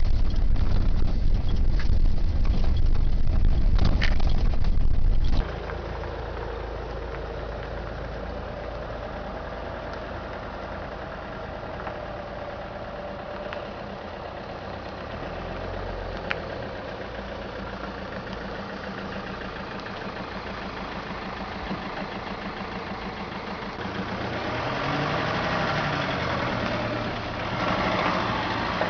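Renault Master II flatbed truck's 2.2 turbodiesel engine running: a loud low rumble heard inside the cab for about the first five seconds. Then, heard from outside, it runs quieter at low speed as the truck manoeuvres, growing louder near the end with its pitch rising and falling.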